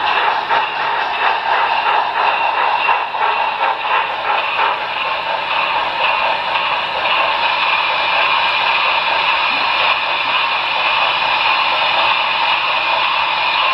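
Model freight train cars rolling past on layout track: quick rhythmic clicking of wheels over the rail joints for the first few seconds, settling into a steady rolling hiss.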